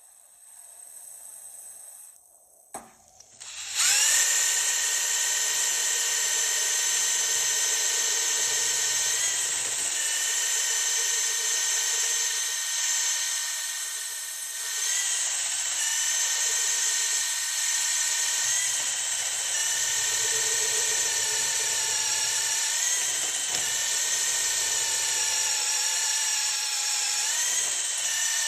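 A power tool's motor starts about four seconds in and runs at a steady high whine, its pitch sagging slightly now and then under load, as it works an old rubber bushing out of a Porsche 928 rear lower control arm.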